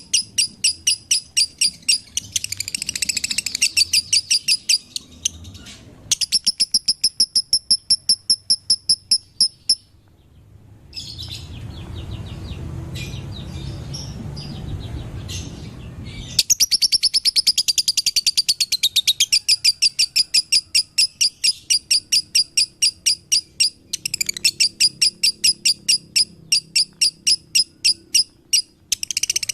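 Lovebird chirping in long, fast runs of high, sharp chirps, about five or six a second. About a third of the way in, the chirping mostly stops for several seconds and a low rushing noise takes over before the runs start again.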